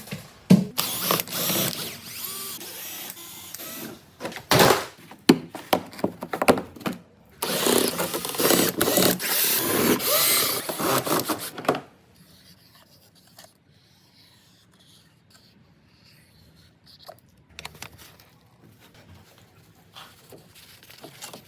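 Power tool running in repeated bursts with clicks and knocks of workshop tool handling. About twelve seconds in, it stops, leaving only a few faint clicks.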